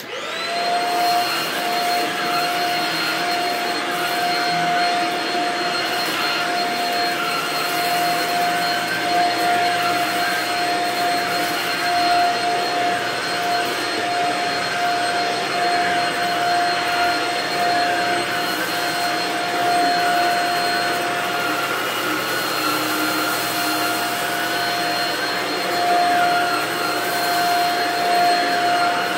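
Shark Rocket DuoClean stick vacuum switching on and then running steadily, with a constant high whine from its motor, as its powered floor head works over a shag rug.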